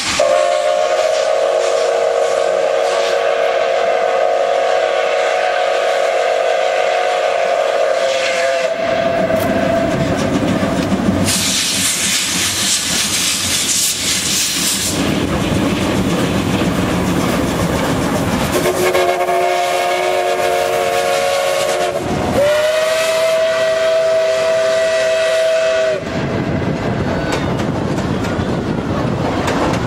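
Two steam locomotives whistling in turn as a double-headed train runs past. A long whistle of about eight seconds comes first, and a loud hiss of steam follows. Two shorter whistles of different tone come later, the last a single clear note, over the train's running noise and wheel clatter.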